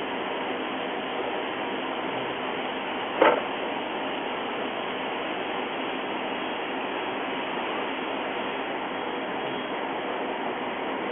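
Steady background hiss of a workshop room, broken once about three seconds in by a single sharp click of a small part or tool knocking on the work table.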